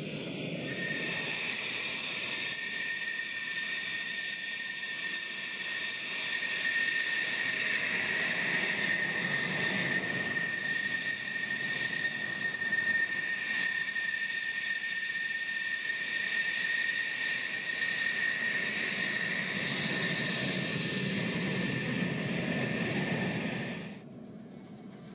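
Fighter jet engines running at taxi power, a steady high whine over a rumble, louder a few seconds in. The sound cuts off suddenly near the end.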